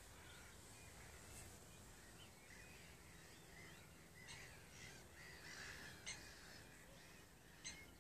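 Gulls calling faintly from a distance, short bending calls scattered through, with a few sharp clicks about four, six and nearly eight seconds in.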